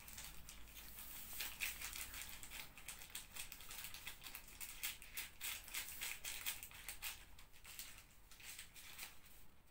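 Packaging crinkling faintly as it is handled, a dense run of small crackles that thins out near the end.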